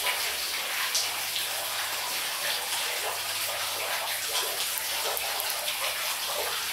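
Steady rush of running water, with a few faint light ticks.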